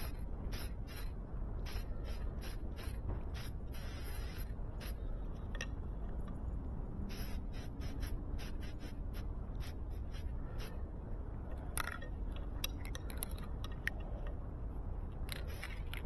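Aerosol can of lacquer sprayed in many short bursts, a hiss that starts and stops again and again, over a low steady rumble.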